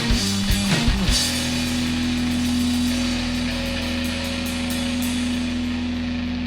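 Rock band music: drums and guitar play a run of hits that stops about a second in on a held chord. The chord rings on and slowly fades, like the close of a song.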